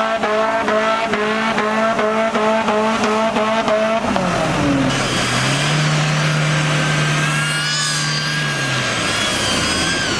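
Off-road vehicle engine revving hard. Its pitch changes abruptly about four seconds in, then holds steady before rising and falling again near the end.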